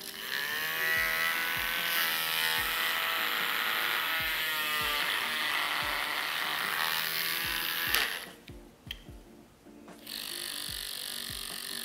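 Handheld battery milk frother switched on and spinning its wire whisk in the air: a rising whine as the motor spins up, then a steady high buzz. It stops about eight seconds in and is switched on again about two seconds later.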